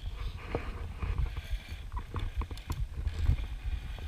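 Metal carabiners and a cable pulley clicking, clinking and scraping on a steel safety cable, with a few short ringing clinks, over a continuous low rumble of handling noise on the microphone.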